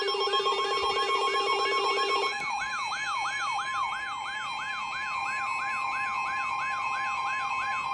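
Emergency Alert System alarm tone: a steady two-tone attention signal layered with a siren that sweeps down in pitch about three times a second, over several higher steady tones. A fast-pulsing low buzz runs under it and drops out a little over two seconds in.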